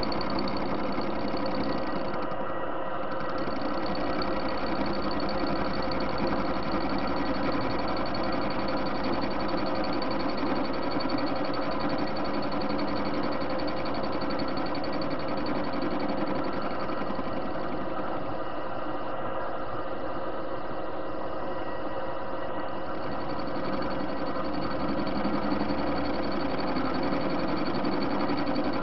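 Soviet-made TV-16 metal lathe running steadily with a metal washer spinning in its chuck: a continuous machine whirr with several steady whining tones.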